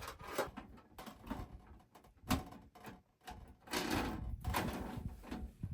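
Knocks and scraping of metal parts being handled and fitted together while a tent stove is assembled, with a sharp knock about two seconds in and a longer stretch of scraping near the end.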